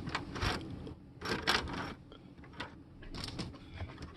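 Irregular clusters of light clicks and knocks, several short groups in a row.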